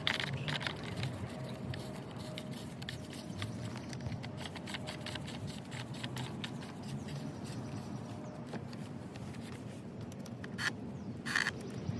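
Scattered light clicks and scrapes of parts being handled, over a low steady background, with a few louder clicks near the end.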